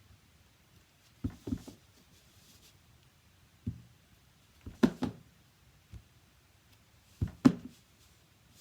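A stamp being inked and pressed onto cardstock on a tabletop: a series of dull knocks, several in quick pairs, the loudest near the middle and about three-quarters of the way through.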